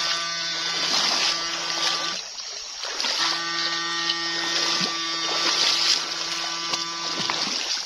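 Backpack electrofishing unit buzzing with a steady low electrical hum, in two spells: about two seconds, a gap of about a second, then about four seconds, as current goes to the probe in the water. Water splashes and sloshes around the wader's legs underneath.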